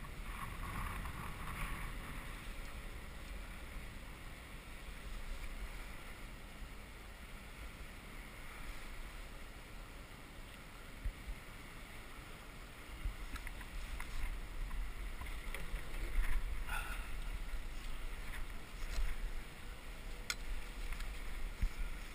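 Wind buffeting the microphone over choppy river water slapping against a kayak hull, a steady low rumble with a watery wash. A few short knocks and clicks come in the second half.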